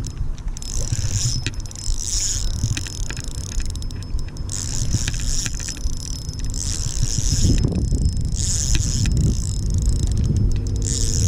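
Drag of a Shimano Solstace 1000 spinning reel buzzing and clicking in several spurts of a second or two as a hooked carp pulls 4 lb line off against it, over a steady low rumble of wind and handling on the microphone.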